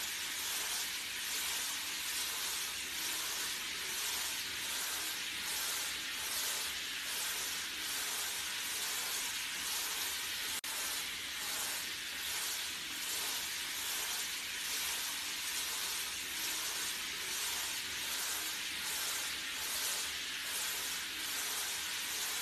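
Water spraying from a handheld shower head onto a dog's wet fur in a plastic tub. A steady hiss that swells and fades in a regular pulse, about three times every two seconds.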